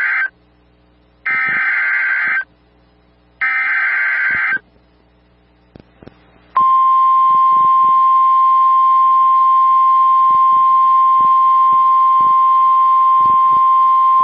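Emergency Alert System SAME header for a tornado warning: the end of one burst of harsh digital data tones, then two more bursts about a second long and a second apart. After a short pause, a loud, steady single-pitch alert tone starts about six and a half seconds in: the 1050 Hz NOAA Weather Radio warning alarm tone.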